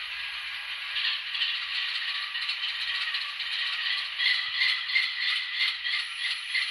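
Sound from the N scale GE Dash 9-44CW locomotive's LokSound decoder, played through its tiny speaker: a thin, hissy, rattly engine and air sound with no bass, steady at first and then pulsing about three times a second from about a second in.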